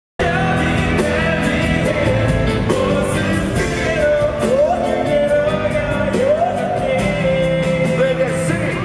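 Live pop song rehearsed through a concert PA: a singer holding notes over a band with a steady drum beat, the voice sliding up into a held note twice near the middle.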